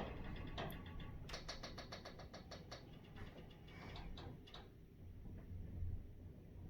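Creaking from the structure of a high-rise apartment building: a rapid run of clicking creaks lasting about a second and a half, starting about a second in, with a few fainter ticks and creaks before and after it.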